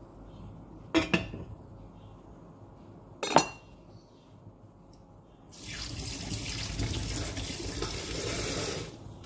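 Two knocks on a wooden cutting board, the second with a short metallic ring as a kitchen knife is set down. About halfway through, a kitchen tap starts running water into a sink and runs steadily for about three seconds, then is shut off abruptly near the end.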